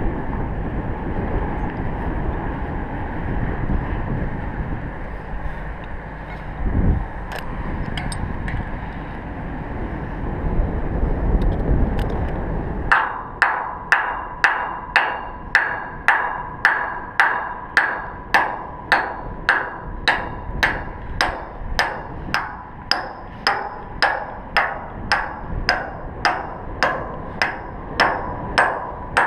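Wind rumbling on the microphone, then, from a little under halfway, a steady run of hammer blows on steel, about one and a half a second, each ringing briefly through the metal.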